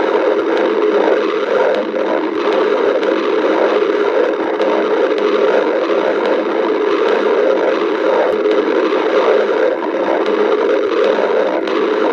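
A person's stomach growling: an unbroken, uneven rumbling gurgle.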